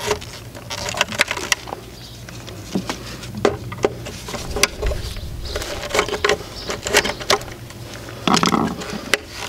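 Irregular small clicks, taps and rustles of electrical wires being fed through a conduit fitting into a pool pump's wiring compartment, with a brief louder noise near the end. A steady low hum runs underneath.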